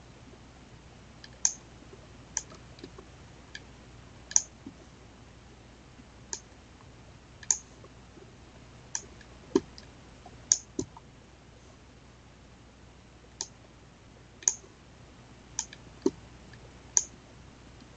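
Computer mouse clicking: single sharp clicks at irregular intervals, roughly one a second, over a faint steady low hum.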